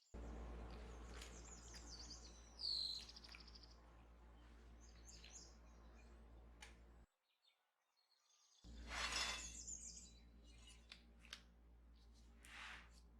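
Faint bird chirps over a steady low hum, with two brief scraping sounds in the second half.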